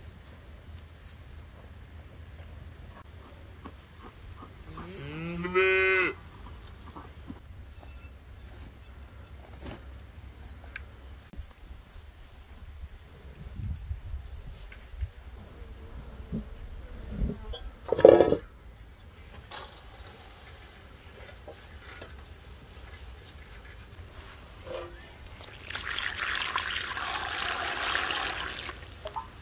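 A cow mooing about five seconds in, one call rising in pitch, with another short loud sound near the middle. Near the end, water pours from a metal jug onto rose petals in a metal bowl for about three seconds, over a steady high insect trill.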